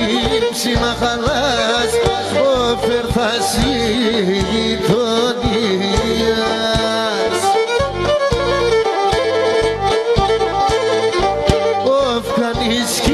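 Instrumental break of a Pontic Greek folk song: a Pontic lyra plays a gliding, ornamented melody over a steady drum beat.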